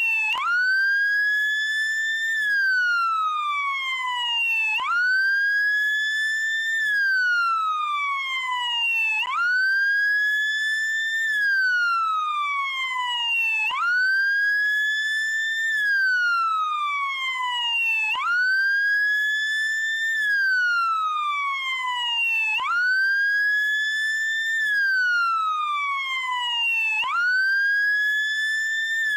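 American police car siren on its wail setting: one tone that sweeps up quickly, climbs a little more to a peak, then slides slowly back down, over and over about every four and a half seconds.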